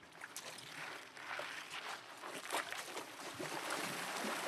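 Running stream water, an even rushing sound with scattered light clicks and rustles, growing louder about a second in.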